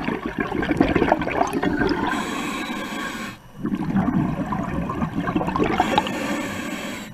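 Scuba diver breathing through a regulator underwater: rumbling, bubbling exhalations, with a hissing inhalation about two seconds in and another near the end.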